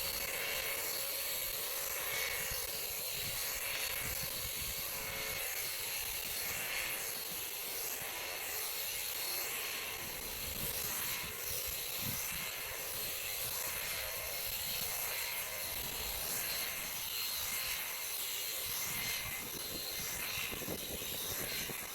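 Graco handheld airless paint sprayer running continuously as it sprays paint, a steady buzzing hiss that cuts off suddenly at the end.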